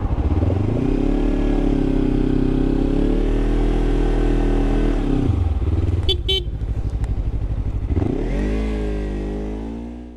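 Motorcycle engine pulling away and climbing in revs, holding steady for a few seconds, then easing off. It picks up and rises again near the end. A short high-pitched sound comes about six seconds in.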